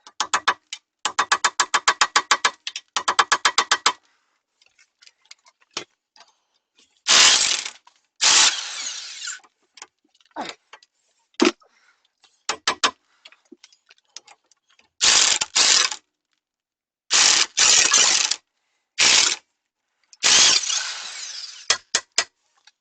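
Tools working a stubborn sway bar link nut. First comes a rapid run of ratchet-like clicking, about ten clicks a second, for roughly four seconds. Then there are several short, loud bursts from a power tool with pauses in between.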